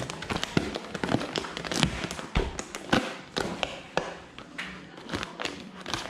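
Black adhesive vinyl film crackling and clicking as it is handled and tucked around a refrigerator door's edge with a thin plastic spatula: irregular sharp taps and crinkles, a few each second.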